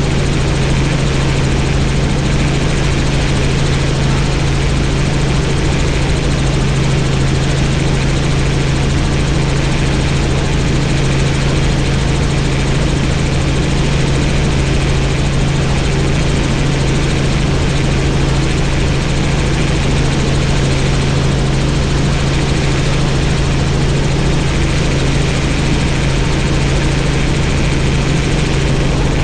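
Helicopter engine and rotors running steadily in flight: a loud, unchanging drone with a strong low hum.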